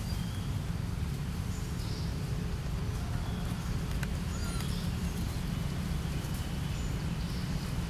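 Outdoor forest ambience: a steady low rumble with faint, scattered bird chirps and whistles above it, and a couple of sharp clicks, one at the start and one about four seconds in.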